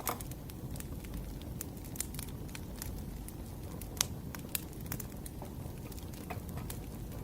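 Firewood burning, with irregular crackles and pops over a low, steady rumble of the flames; a few pops stand out, the sharpest about four seconds in.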